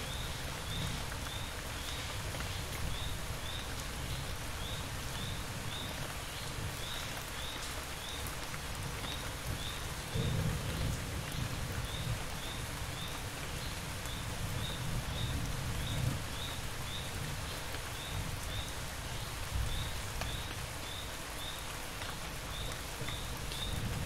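Steady rain falling, an even hiss of drops on surfaces, with a low rumble swelling now and then. A faint high chirp repeats about twice a second throughout.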